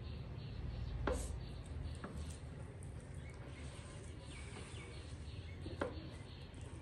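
Rice and curry being mixed by hand on a steel plate, with soft scraping, and two sharp clinks of tableware, one about a second in and one near the end.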